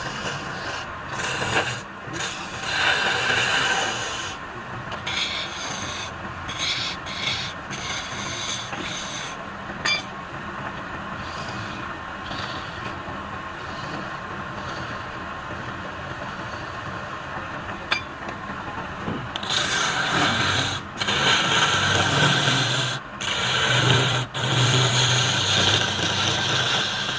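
Wood spinning on a lathe being cut and scraped with a turning tool: a rasping hiss that comes and goes as the tool is pressed on and lifted. It gets louder in the last several seconds.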